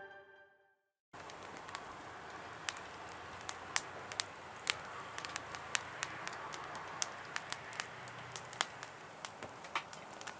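Wood fire crackling in a Solo Stove Campfire stove: a steady faint hiss with irregular sharp pops, some close together, others a second or more apart. A music track fades out just before the crackling starts, about a second in.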